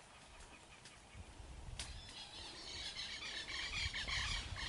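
Birds chirping and twittering in the background, growing louder over the second half, over a low rumble of wind, with a single faint click.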